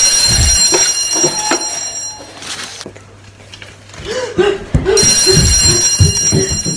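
Electronic alarm ringing, high-pitched, in two bursts of about two seconds each with a pause between, the second starting about five seconds in. Running footsteps on a wooden floor thud under the second burst.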